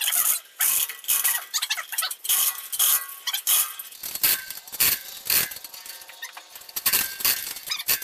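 Chain hoist being worked under a heavy load of roughly 6,800 pounds, giving a run of irregular metallic clicks and chain rattles.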